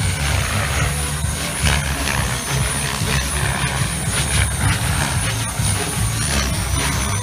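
Two small electric OXY 3 RC helicopters in aerobatic flight: rotor swish and a thin steady high motor whine. Wind buffets the microphone as a fluctuating low rumble, the loudest part of the sound.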